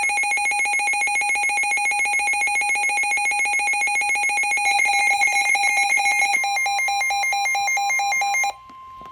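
Weather radio alert alarm signalling a new severe thunderstorm warning: a loud, rapidly warbling electronic tone. About six seconds in, the steady 1050 Hz NOAA Weather Radio warning tone joins it; the warble cuts off suddenly shortly before the end, leaving the steady tone.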